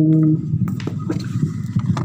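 The long held final note of an unaccompanied Dao pả dung folk-song line ends about a third of a second in. The rest is the pause between sung lines: a low, uneven rumbling background noise with a few faint clicks.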